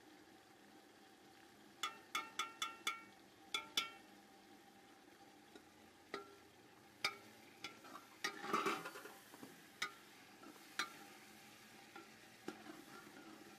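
Metal ladle clinking and scraping against a hammered metal pot while stirring minced meat frying in oil, over a faint sizzle. A quick run of about six ringing clinks comes about two seconds in, two more near four seconds, and a longer scrape about eight seconds in.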